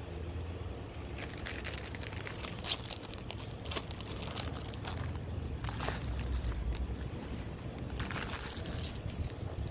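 Close-up eating noises: crunchy chewing and crackling, with crinkling of the paper basket liner, from about a second in. Under it runs a steady low rumble.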